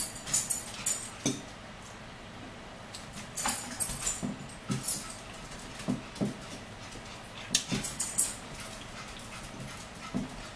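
Forks and a knife clicking and scraping on plates at irregular moments while two people eat, with a quieter stretch a couple of seconds in.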